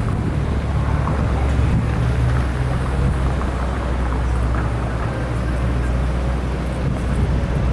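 Steady low engine drone under a constant rushing noise, with no change in pitch.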